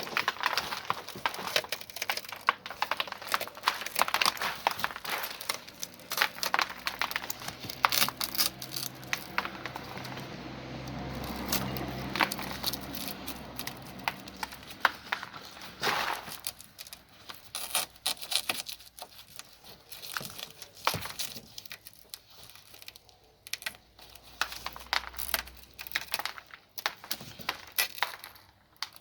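Shattered rear window glass crackling and crunching, with many small sharp clicks, as the glass and rubber seal are worked loose by hand. A low hum swells in for several seconds in the middle.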